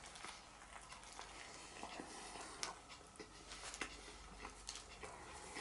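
Faint chewing and mouth sounds: a person eating a breaded chicken burger, with scattered soft clicks.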